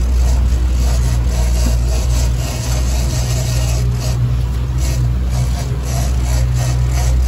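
Outboard motor running steadily with the boat under way, over a loud, uneven rush of water and wind.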